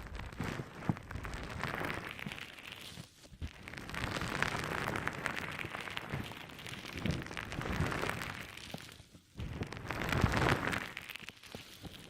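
Wet konjac sponge squeezed and pressed close to the microphone, making a crackling, squelching sound that comes in slow swells, with brief pauses about three and nine seconds in.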